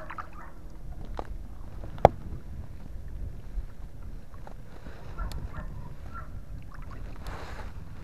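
Lake water sloshing against a kayak hull as a hand holds a hooked bass in the water to revive it, with one sharp knock about two seconds in and two short swishes near the end.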